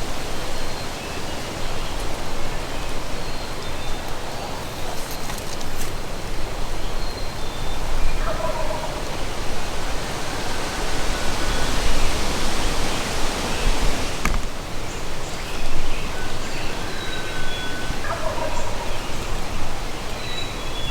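A wild turkey gobbling twice, about eight seconds in and again near the end, faint under steady wind noise on the microphone.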